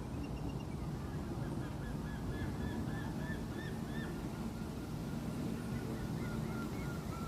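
A bird calling in a rapid series of short, arched notes, several a second, over a steady low rumbling background.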